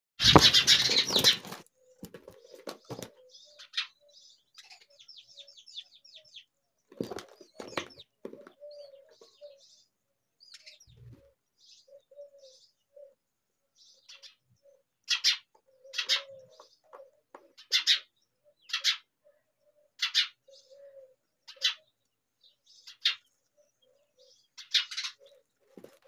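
Myna nestlings begging with short, rasping calls, repeated about once a second, while an adult common myna is at the nest. A loud burst of wing flapping opens it, followed by softer chirps and a faint low repeated note.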